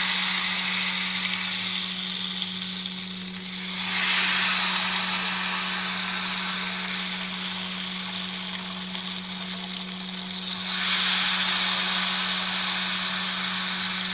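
Ghevar batter frying in deep, smoking-hot ghee: a continuous sizzle that surges about four seconds in and again about eleven seconds in, as fresh batter hits the fat and froths into a lattice, and eases off as the froth settles. A steady low hum runs underneath.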